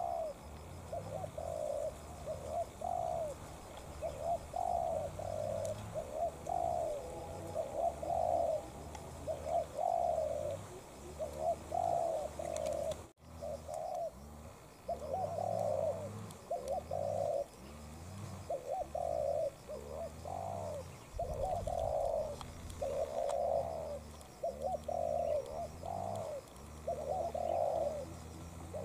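Spotted doves cooing in a steady run of repeated phrases, with a brief gap about halfway through.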